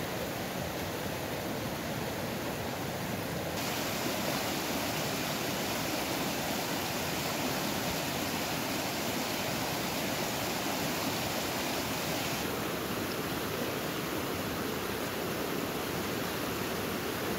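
Fast mountain stream rushing and splashing over rocks in a steady rush of water. It grows brighter and a little louder about four seconds in and drops back about two-thirds of the way through.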